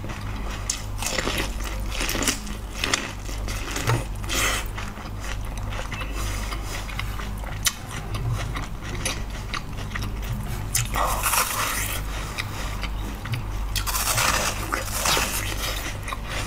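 Close-up biting and chewing of ears of corn, one yellow and one white, with many small crisp clicks and crunches as kernels are bitten off the cob. A steady low hum lies underneath.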